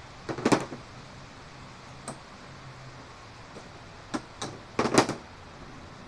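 Metal tools and parts knocking and clanking on a wooden workbench: a quick cluster of sharp knocks about half a second in, single clicks around two and four seconds, and another cluster of knocks about five seconds in.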